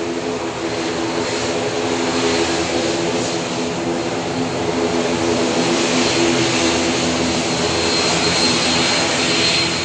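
Turboprop airliner's engines running just after landing: a steady drone with a high whine that comes in near the end, growing slightly louder.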